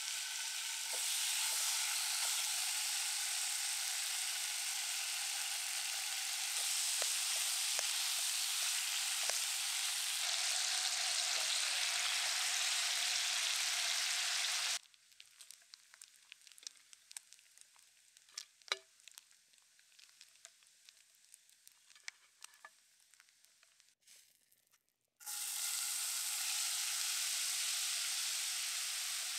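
Bacon sizzling loudly and steadily in a hot pan. About halfway through the sizzle cuts off abruptly, leaving faint scattered crackles and pops for about ten seconds. Then loud sizzling starts again, with shredded potatoes going into the hot bacon fat near the end.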